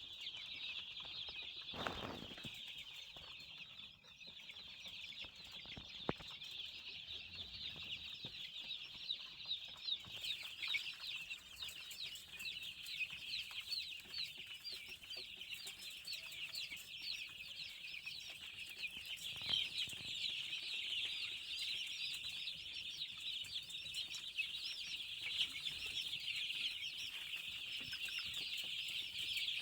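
A large flock of young chickens peeping continuously, many overlapping high cheeps, growing denser about ten seconds in.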